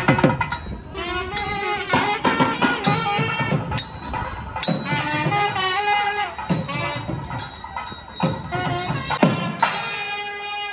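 Nadaswaram playing a bending, ornamented melody over sharp thavil drum strokes: South Indian periya melam temple music for a deity procession.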